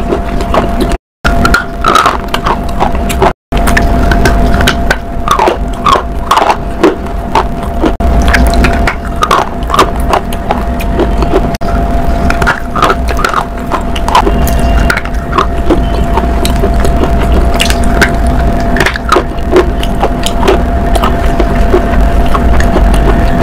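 Close-miked crunching and chewing of hard, crunchy bars being bitten off and chewed: dense sharp cracks and snaps with a faint steady hum underneath. The sound cuts out briefly twice, about a second in and again about three and a half seconds in.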